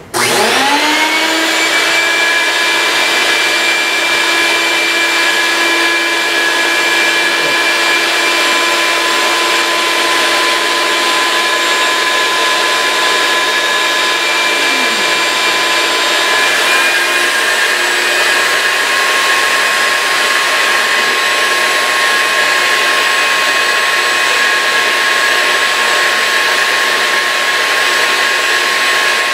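Vacuum motor of a vacuum-forming table switched on, spinning up over the first second and then running steadily as it sucks the heated plastic sheet down over the canopy form; its pitch shifts slightly about halfway through.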